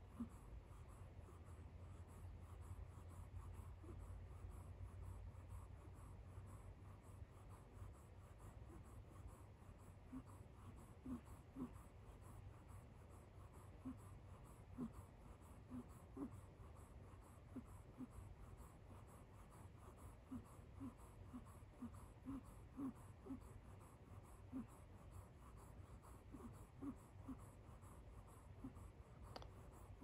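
Sleeping kitten snoring: faint, short squeaky notes coming irregularly, most of them from about ten seconds in, like a tiny donkey braying.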